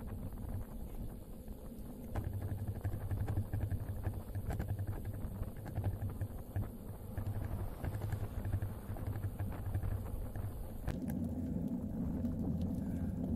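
Wind buffeting the action camera's microphone and tyre rumble from a road bike riding at speed on asphalt. The low rumble changes in character near the end.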